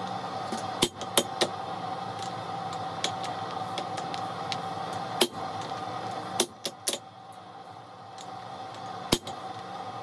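Hand hammer blows on a glowing steel block on an anvil: sharp, irregular strikes, three close together about a second in, single ones around three and five seconds, and a quick cluster of three near six and a half seconds. Under them runs a steady hum that drops off about six seconds in.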